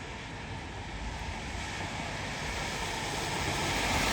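A road vehicle approaching, its tyre and engine noise growing steadily louder.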